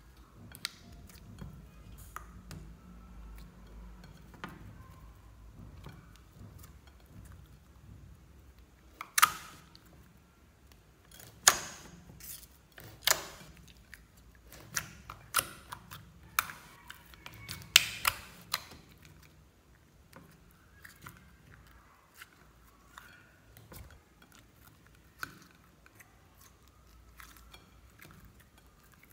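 Clear slime being squished, folded and stretched by hand, with soft sticky crackles and wet clicks. In the middle of the stretch comes a run of loud, sharp pops, over a dozen in about ten seconds, as trapped air bursts out of the slime.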